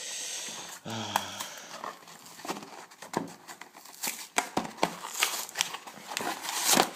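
Product packaging being torn open and crinkled by hand: a rip in the first second, then a run of irregular crackles and clicks as the package is worked open.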